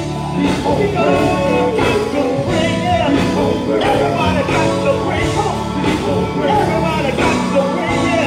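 Gospel group singing live through microphones and a PA, with instrumental backing.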